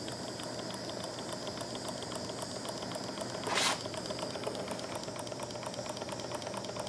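Miniature air-cooled Stirling engine running, just started on torch heat, its flywheel turning with a fast, even ticking, over the steady hiss of a butane pencil torch flame on its hot cylinder. A short hiss about halfway through.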